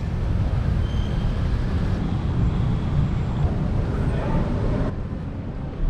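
Steady low rumble of outdoor background noise with a light hiss over it; the rumble shifts about five seconds in.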